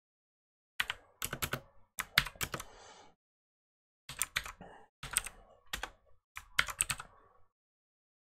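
Typing on a computer keyboard: quick runs of keystrokes in several bursts with short pauses between them, starting about a second in.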